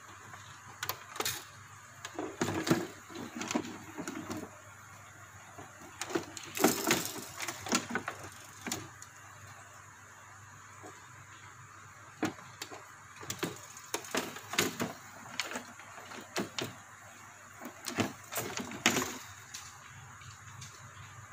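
Irregular plastic clicks, taps and rustling from hands handling wires and pressing them into the push-in spring terminal blocks of an air cooler's circuit board. The clicks come in several short clusters with pauses between them.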